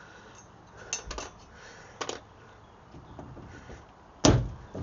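Metal clinks from a claw puller being worked on a seized boat steering wheel, then one loud sudden bang about four seconds in.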